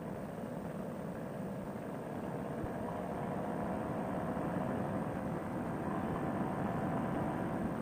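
Fresh Breeze Monster paramotor engine running steadily in flight, with its propeller, getting slightly louder a couple of seconds in.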